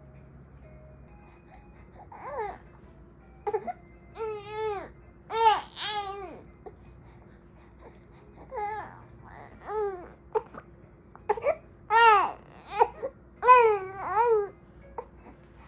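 Baby vocalizing: a string of short, high-pitched babbling cries that rise and fall in pitch, starting about two seconds in.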